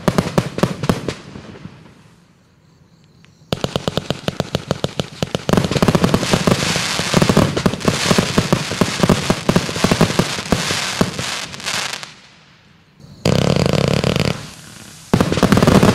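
Climax 'Red Ghost' fireworks cake firing. Rapid shots and crackling for about two seconds, then a short lull. A quick run of shots follows, then several seconds of dense crackling that fades out. Near the end a steady rushing spray of red sparks sounds in two spells, with a short break between them.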